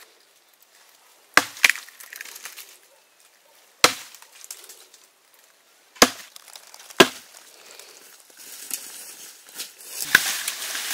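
A blade chopping: about six sharp strikes at uneven intervals, two in quick succession early on, with fainter rustling and crackling between strokes.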